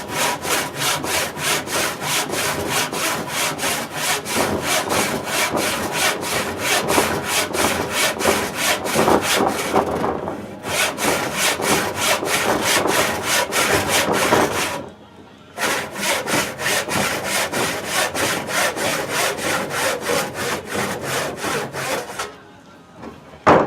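Hand saw cutting through a wooden stool leg in quick, even back-and-forth strokes. It pauses briefly twice and stops a little before the end.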